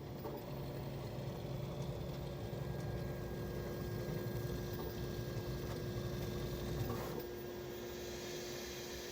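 3D printer running, its motors giving a steady hum with a constant tone. About seven seconds in, the low hum drops away and a higher hiss comes up.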